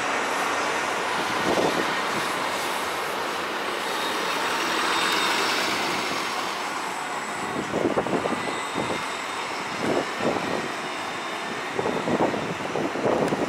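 A Nova LFS-HEV hybrid-electric city bus driving past, a steady wash of engine and tyre noise that is loudest in the first few seconds as it goes by. In the second half, irregular short louder bursts of street noise.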